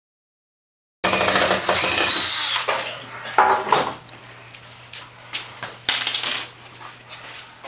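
Construction work noise. After a second of silence, a power tool starts abruptly and runs for about a second and a half, followed by scattered metallic clinks and knocks of tools and framing lumber, with another short loud burst about six seconds in.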